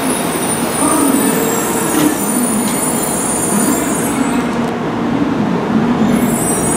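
N700-series Shinkansen train running slowly alongside the platform as it arrives, a steady rumble with a thin high whine over it.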